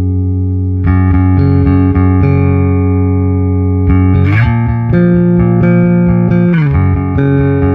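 Electric bass guitar, a Fender P/J, played clean through a Traynor YBA300 all-tube bass amp head, the mic'ed cabinet blended with the amp's pre-EQ DI signal. Long held notes, with new notes picked about a second in and near the middle, and slides up and down between pitches.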